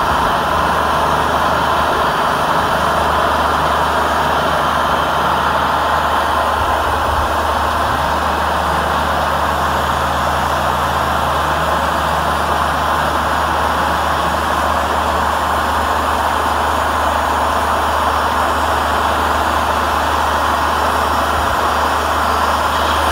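Wood-Mizer LT40 Wide portable band sawmill running steadily while its band blade saws through a walnut log: a constant low engine drone under an even sawing noise.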